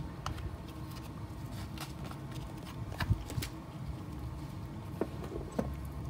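Hands working potting soil in a plastic planter: soft rustling and a few sharp ticks, the loudest about three seconds in, over a low steady rumble.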